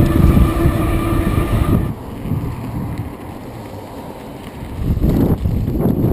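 Wind buffeting the microphone of a camera on an electric bike ridden fast, a heavy low rumble with a steady whine over it for the first two seconds. Then a quieter rumble of riding a dirt trail, with louder gusts of wind near the end.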